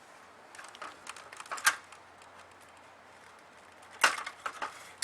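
Hard clicks and light rattles of the MSR DragonFly's fuel bottle and pump being handled and fitted: a run of small clicks ending in one sharp click about a second and a half in, then a louder clatter of clicks near the end.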